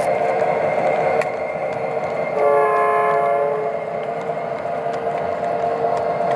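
O-gauge model freight train's tank cars rolling past on the track with a steady hum. About two and a half seconds in, the locomotive's onboard sound system blows a horn for about a second.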